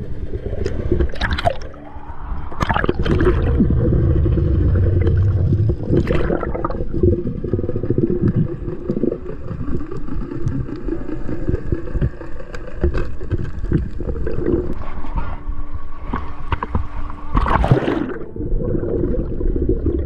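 Underwater sound picked up by a diver's camera: a muffled low rumble and gurgling of water with a steady droning hum running under it. Several louder swishes of water break in, the biggest near the end.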